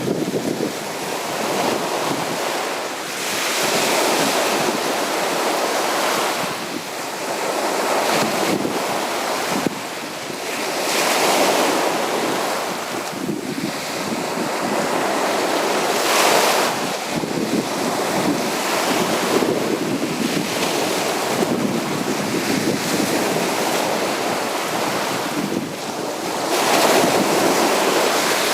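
Sea waves breaking on a beach: steady surf that swells and eases every few seconds as each wave comes in and washes back.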